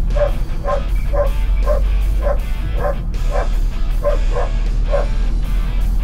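A dog yipping and whining over and over, short high calls coming about twice a second, its 'singing'. Underneath runs the steady low rumble of the moving vehicle's cabin.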